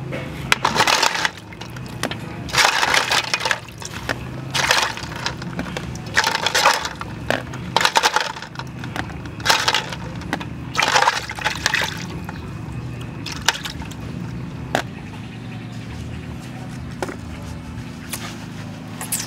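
Water splashing and dripping in a steel pot as freshwater snails are rinsed by hand and lifted out, a splash about every second. The splashing stops about two-thirds of the way in, leaving a few light knocks over a low steady hum.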